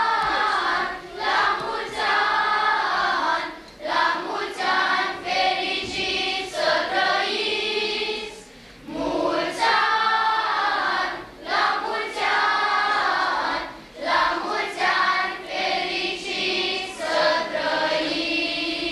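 Children's school choir singing, in phrases a few seconds long with short breaks between them.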